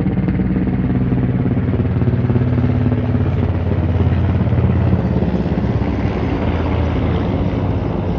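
Helicopter running, a steady low hum with the rapid even chop of its rotor.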